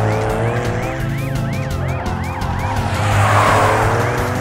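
Cartoon police car siren yelping in fast rising-and-falling sweeps, about two a second. A rushing whoosh swells about three seconds in.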